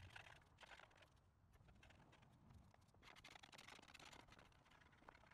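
Faint, scratchy hiss of sandpaper rubbed by hand over the carved wooden seat, in two spells of strokes: one right at the start and another about three seconds in.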